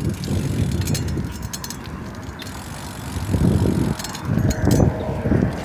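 Wind buffeting the microphone in uneven gusts, with a low rumble of travel on the road; the gusts grow stronger about three seconds in.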